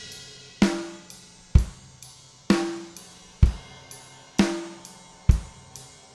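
Recorded acoustic drum kit playing a slow, steady beat, heard as a full mix of close mics, overheads and a heavily compressed room mic. Kick drum and snare alternate about once a second, with lighter high ticks between them.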